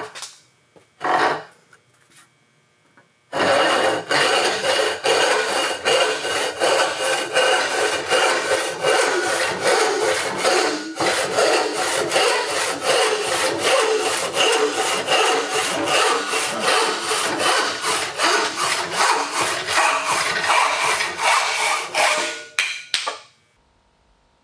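Hand saw cutting through plywood held in a vise. After one short stroke about a second in, it settles into quick, even back-and-forth strokes, about two or three a second, with a brief pause midway. The strokes stop near the end as the piece is cut through.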